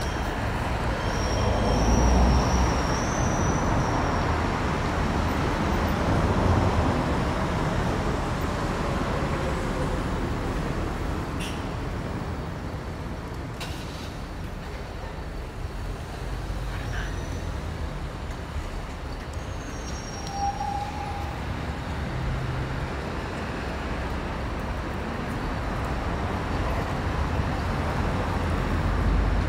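Road traffic on a multi-lane city street: a steady rumble of vehicles going past, louder in the first few seconds as heavier ones pass, with a brief high squeal about one to three seconds in.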